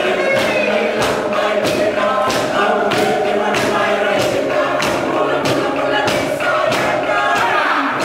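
Fijian village choir singing in harmony, with bamboo stamping tubes (derua) struck on the floor in a steady beat about three times a second.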